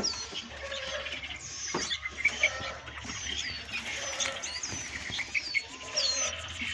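Many small caged songbirds chirping at once, short high calls that often sweep downward and overlap one another, over a steady low hum.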